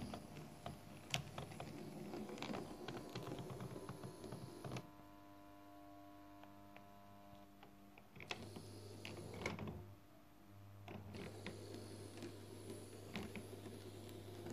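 TT-scale model Köf shunting locomotive running along the track with freight wagons: faint, irregular clicking of the wheels over rail joints and points, over a low steady hum. The clicking drops away twice, for a few seconds about a third of the way in and briefly about two-thirds through.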